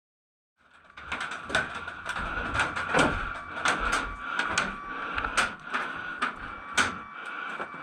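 Airsoft gunfire: a string of sharp, irregular snaps of guns firing and BBs striking, over a steady background hum, starting abruptly about half a second in.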